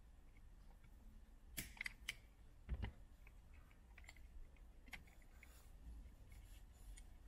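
Plastic clicks and light ticks from hands working a multi-pin wiring connector of the car's body control module, opening it and releasing its locks. A few sharp clicks come about one and a half to two seconds in, then a dull knock just before three seconds, then scattered faint ticks.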